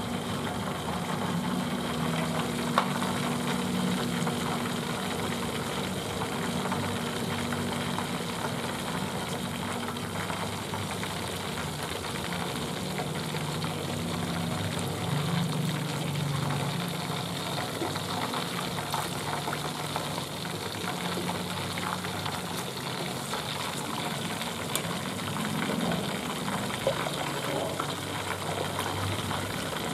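A whole fish deep-frying in a large pot of hot oil: a steady sizzle with fine crackling over a low steady hum, and a single sharp click about three seconds in.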